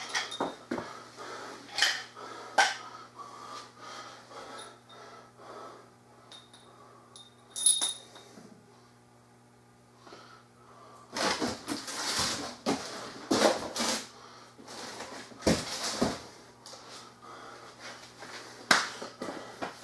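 Scattered clicks, knocks and small clinks of parts being handled while an electric pressure washer is assembled, over a steady low hum. A few seconds past the middle comes a longer stretch of louder rustling and scuffing.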